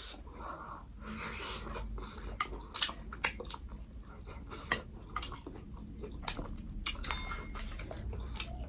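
Close-up chewing and mouth sounds of someone eating a meal, with many small wet clicks and a few sharper smacks.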